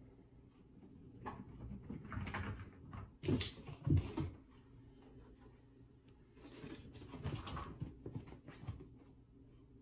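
Soft scuffling and rustling on fabric from tiny kittens tumbling and playing, in two spells, with a couple of louder thumps about three to four seconds in.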